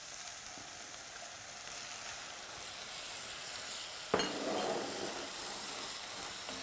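Minced meat and vegetables with a splash of red wine sizzling in a pot over raised heat, stirred with a wooden spoon as the wine cooks down. A single sharp knock comes about four seconds in, followed by a brief louder stretch of sizzling.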